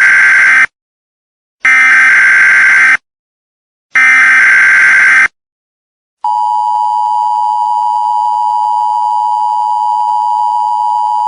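Emergency Alert System broadcast header: three bursts of rapid SAME digital data tones, each about a second long with a second's gap between them. About six seconds in, the steady two-tone EAS attention signal begins and holds.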